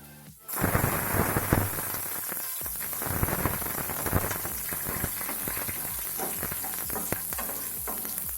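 Garlic hitting hot oil in a pan of tempering mustard seeds and dal and sizzling, starting suddenly about half a second in, with scattered clicks through the steady hiss.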